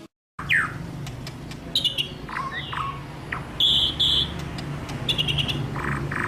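White-rumped shama (murai batu) singing a varied run of whistled notes, sliding calls and quick rattling trills, over a steady low hum.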